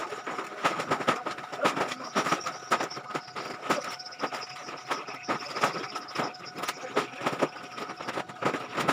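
Large sacks of plastic scrap being tossed up and stacked on a truck: a run of irregular rustling thumps and crinkles, several a second, with a faint steady high tone underneath.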